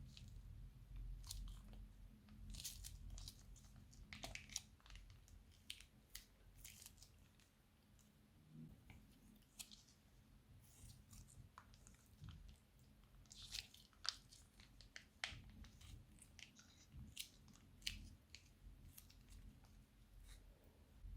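Crunchy slime being squeezed and worked by hand, giving faint, irregular crackles and crunches.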